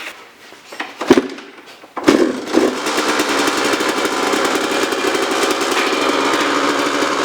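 A couple of sharp knocks, then a small engine starts about two seconds in and keeps running steadily with a fast, even firing pulse.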